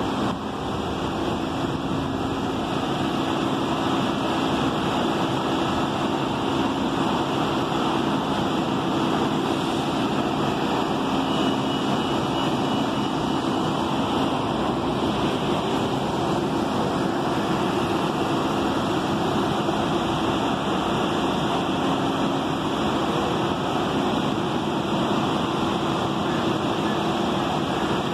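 Steady street traffic noise with a low, even engine hum from an idling transit minibus and cars passing close by.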